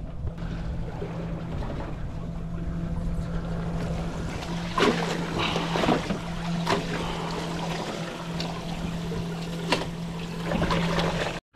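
A canary rockfish being put into a boat's water-filled fish hold: water splashing and sloshing, with a few sharp knocks, over a steady low hum.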